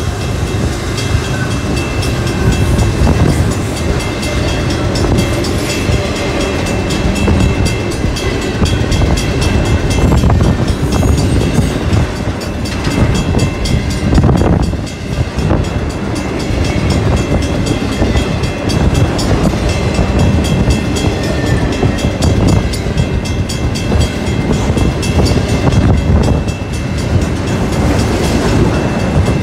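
Union Pacific double-stack intermodal container cars rolling past at close range: a loud, steady rumble of wheels on rail with rapid fine clicking and a thin steady high tone above it, briefly easing about halfway through.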